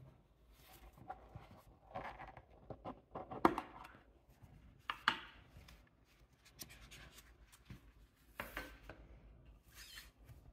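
A metal tin case of nail clippers being opened and handled and a clipper lifted out of its foam insert: light rubbing and scraping with a few sharp clicks, the loudest about three and a half and five seconds in.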